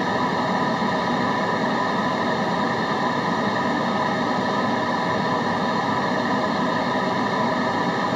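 Steady white noise, unchanging throughout, with a few faint steady tones held within the hiss.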